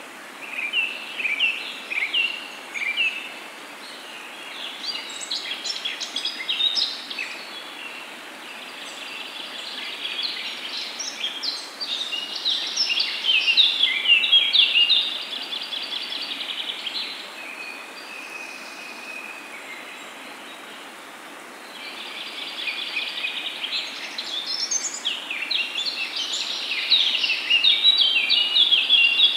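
Onion-and-lentil fritters (peyaju) deep-frying in hot oil in a pan: a steady hiss with dense crackling sizzle that swells several times as more fritters go into the oil.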